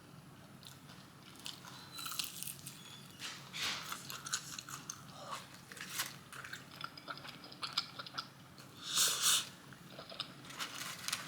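Close-miked eating of fried chicken tenders and fries: crisp crunching bites and chewing, with the loudest crunch about nine seconds in.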